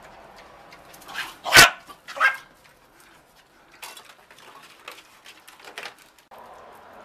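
Small dog barking: three sharp barks in quick succession between about one and two and a half seconds in, the middle one loudest.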